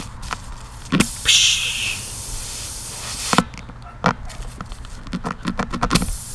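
Tire plug kit reamer being worked in and out of a puncture in a motorcycle tire: scattered sharp clicks and scrapes, turning into a quick run of clicks near the end. A short hiss comes about a second in, air escaping from the puncture.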